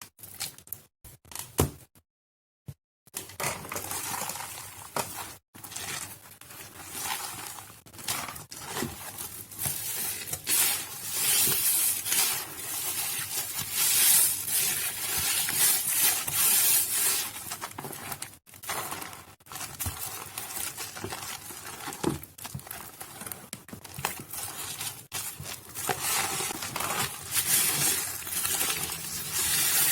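Soaked Nuvo bar soap being crushed and squished, a dense wet crackling and crunching, with a short break about two seconds in.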